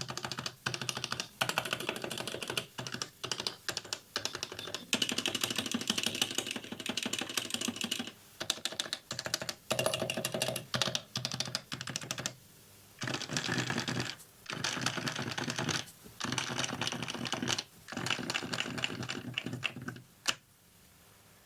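Fast typing on an HHKB Professional (PD-KB300NL) keyboard with Topre switches, in its modded state. Keystrokes run in dense bursts of a few seconds, broken by short pauses, with a last click about twenty seconds in.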